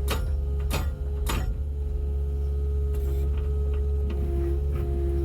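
Diesel engine of a Kubota KX080 mini excavator running steadily, heard from inside the cab, with three sharp clicks in the first second and a half. A short, steady tone sounds twice near the end. The hammer is not yet running.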